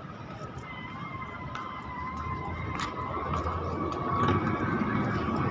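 A siren-like tone held steadily over street noise, with a fainter tone above it, wavering only slightly in pitch and growing louder in the second half.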